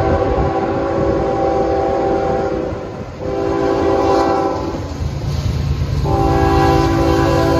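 CN ES44AC locomotive's air horn blowing its chord in long blasts, breaking off about 3 s in and again about 5 s in before sounding once more: the horn signal for the grade crossing as the train approaches.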